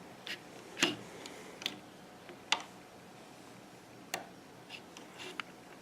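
Scattered light clicks and taps, about seven of them at uneven spacing, from a plastic hook and Fun Loom pegs as rubber bands are hooked and looped over.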